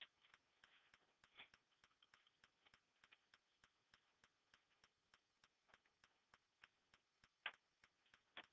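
Near silence: room tone with faint, evenly spaced ticking about three times a second, and a few slightly louder clicks, the strongest near the end.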